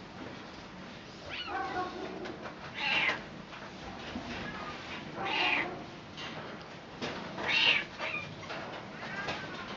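Domestic cat meowing repeatedly: about five short meows, roughly two seconds apart.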